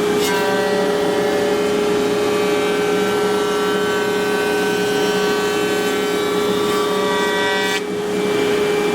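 CNC router spindle running with a steady high whine. A changing set of higher tones rides over it as the bit cuts wood, and they break off briefly about eight seconds in.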